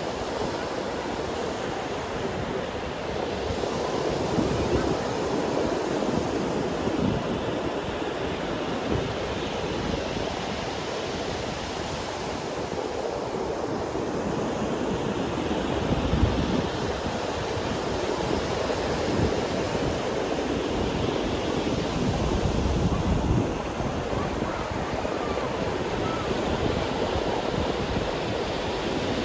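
Ocean surf on a sandy beach: waves breaking and washing up the shore in a continuous rush that swells and eases every few seconds.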